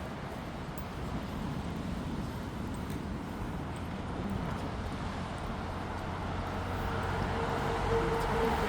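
A steady rushing outdoor noise, with a vehicle's engine drone coming in about two-thirds of the way through and growing louder.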